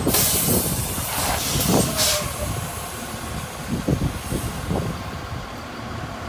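McNeilus front-loader garbage truck's diesel engine running, with bursts of air hiss near the start and about two seconds in. A few short knocks follow later.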